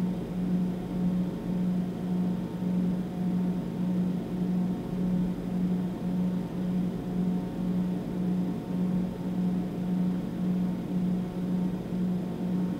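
A low steady hum that pulses evenly in level about one and a half times a second, with fainter higher tones above it.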